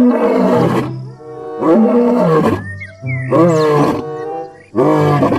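White lion roaring: four deep, drawn-out roars about a second and a half apart. Background music runs under them.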